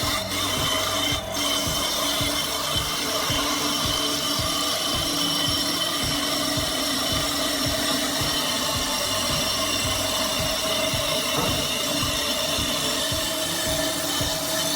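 A power saw cutting through wood, running steadily with a rasping, grinding texture.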